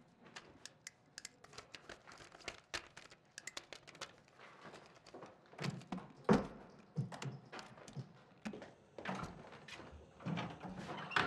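Hurried handling noises: paper and photo prints rustling with many small clicks, then a heavy thunk about six seconds in as a case lid is shut, followed by scattered knocks and a door near the end.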